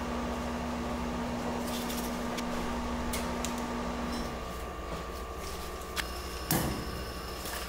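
Steady low kitchen hum with a few faint ticks, then a short thud about six and a half seconds in as a pat of butter drops into an empty nonstick saucepan.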